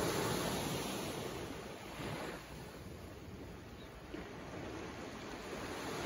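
Small waves on a calm Mediterranean sea washing up a sand-and-gravel beach. The surf is louder at first, ebbs away in the middle and builds again near the end.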